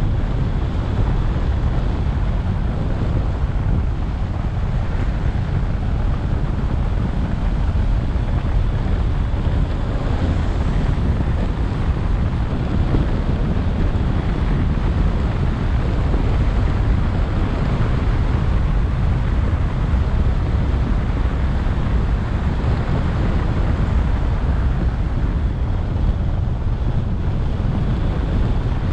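Steady wind rumble on a roof-mounted action camera's microphone as the car drives, mixed with road noise, heaviest in the low end.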